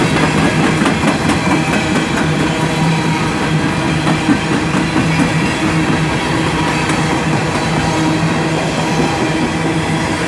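CSX freight train's coal gondola cars rolling past close by, steel wheels running on the rails in a steady, loud rumble with a constant low hum underneath.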